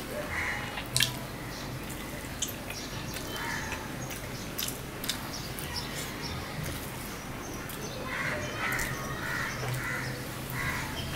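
Close-up eating sounds of a man eating rice and mutton curry by hand: chewing and wet mouth clicks at irregular moments. A bird calls in the background several times, near the start, in the middle and near the end.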